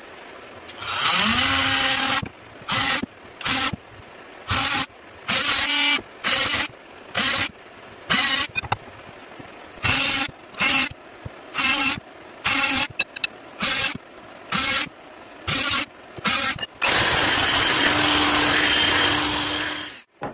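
Power drill boring shallow round holes into a pine board: the motor spins up with a rising pitch at the start, then runs in about twenty short trigger bursts, then one steady run of about three seconds near the end.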